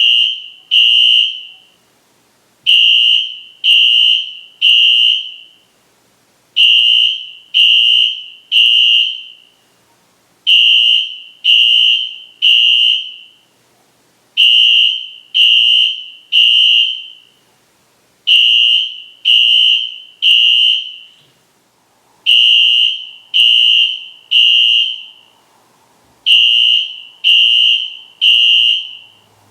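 Wheelock fire alarm horn sounding the temporal-3 evacuation pattern: three short, high-pitched blasts, a pause, then three again, about every four seconds.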